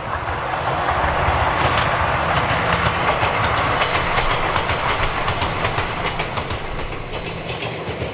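Two-car Ichibata Electric Railway electric train running past on the Taisha Line, with steady wheel-and-rail noise and rapid clicking over the rail joints. The sound swells in the first second or so, stays loud for a few seconds, then eases as the train pulls away.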